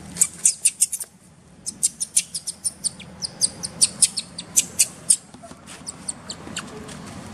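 Baby long-tailed macaque giving short, high-pitched squeaks in quick runs of about four or five a second, with a brief pause about a second in and fewer squeaks toward the end.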